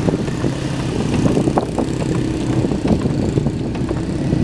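A vehicle engine running steadily at idle, with scattered small clicks over it.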